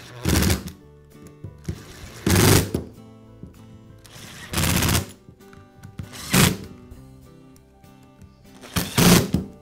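Screws being driven with a screwdriver into the plastic housing of a Dremel rotary tool, heard as five short noisy bursts about two seconds apart. Soft background music plays underneath.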